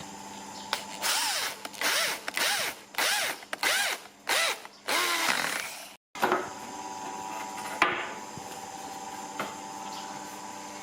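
Handheld power drill run in about six short trigger bursts, its motor whine rising and falling with each pull, before stopping abruptly. A couple of single knocks follow.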